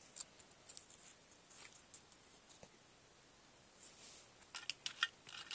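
Faint handling noises of stickers and a small tin being moved about: scattered light clicks and rustles, with a quick run of sharper clicks near the end.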